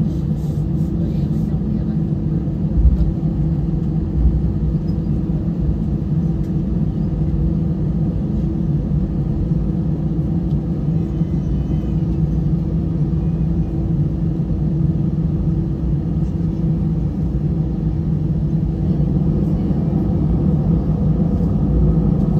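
Airbus A320 taxiing after landing, heard from inside the passenger cabin: a steady low rumble of the engines at taxi idle and the wheels, with a low hum. Two soft bumps come about three and four seconds in.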